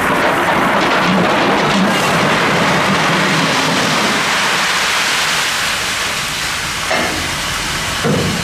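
Iron ore sliding and pouring out of a tipped side-dump ore wagon: a loud rushing rattle of rock that eases off over the second half, with two knocks near the end.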